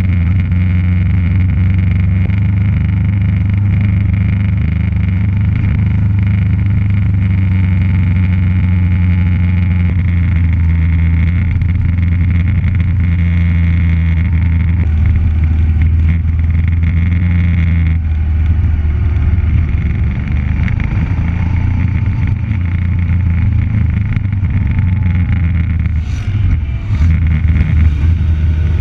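Motorcycle engine running steadily at cruising speed, heard from on the bike with wind rush. Near the end it grows louder and more uneven inside a road tunnel.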